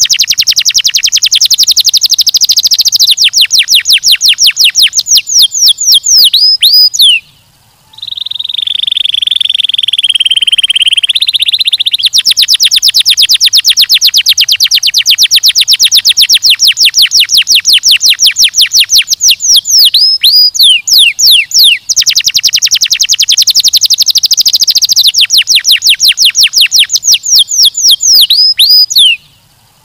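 Domestic canary singing: long, rapid trills of quick downward-sweeping notes. About eight seconds in, after a brief break, comes a held steady note lasting several seconds, and then the fast trills start again.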